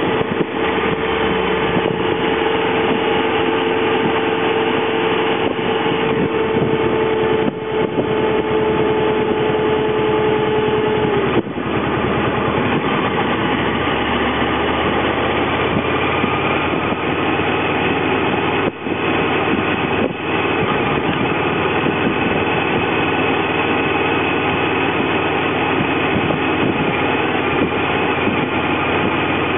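Honda VFR motorcycle's V4 engine running at steady cruising speed, heard from the bike over heavy wind rush on the microphone. Its steady note falls away about eleven seconds in.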